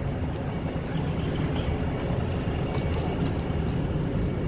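A coach bus engine idling with a steady low rumble, with a few light clicks and knocks about three seconds in.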